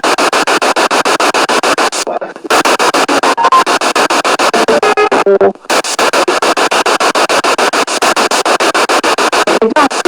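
Spirit box sweeping through radio stations: loud static chopped into rapid even pulses several times a second, with brief fragments of broadcast sound caught between the sweeps and two short dropouts.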